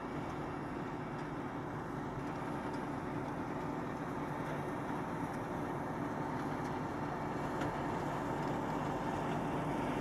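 CLAAS Dominator 204 Mega combine harvester running steadily while harvesting and unloading, with a tractor's engine alongside. A steady drone carries a thin, higher steady tone, and it grows a little louder near the end.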